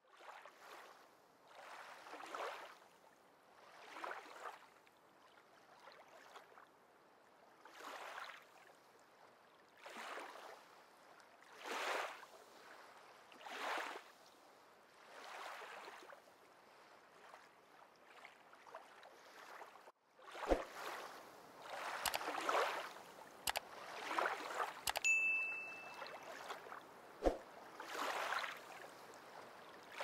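Water lapping in gentle swells about every two seconds. After a short break about two-thirds of the way through it grows louder, with a few sharp knocks and one brief high ding.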